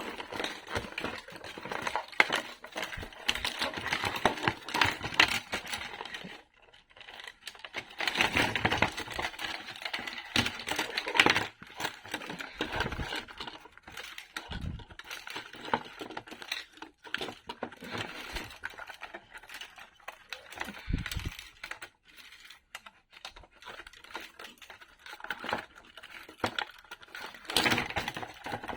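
Small puzzle pieces being handled and pulled apart as a puzzle house is taken to pieces: irregular clicks, clacks and rustling, busier in some stretches and sparse in others.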